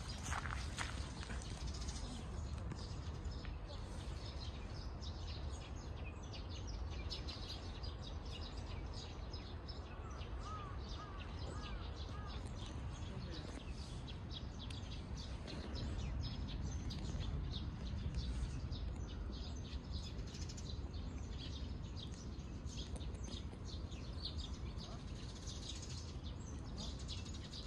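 Small birds chirping on and off, with a short run of repeated calls about ten seconds in, over a steady low outdoor rumble.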